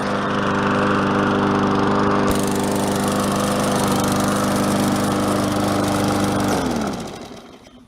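MTD Yard Machines walk-behind lawn mower engine running at a steady speed, then stopping near the end, its pitch falling as it spins down to a halt.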